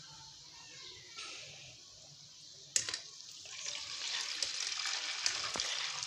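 Gulab jamun dough balls deep-frying in hot oil, sizzling and crackling. A single sharp click comes a little under three seconds in, and the sizzle grows louder from about three and a half seconds.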